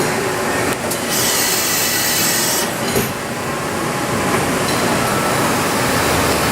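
Fadal VMC40 CNC vertical machining center running, a steady mechanical rattle and rumble. A louder high hiss comes in about a second in and stops shortly before the three-second mark.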